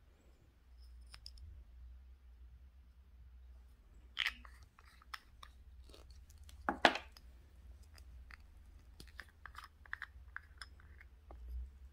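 Small clear plastic jars of nail glitter being handled: scattered light clicks and taps, with two louder knocks about four and seven seconds in.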